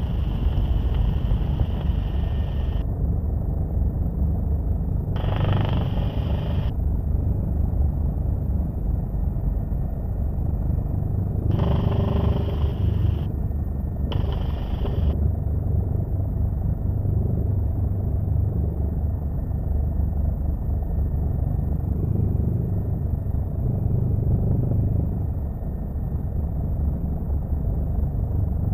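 Helicopter noise heard from inside the cabin, a loud steady low drone of rotor and engine. Several times a brighter hiss cuts in and out abruptly for a second or two.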